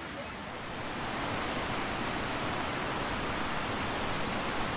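Rushing water from a waterfall: a steady, even hiss of falling water that grows louder over the first second and then holds.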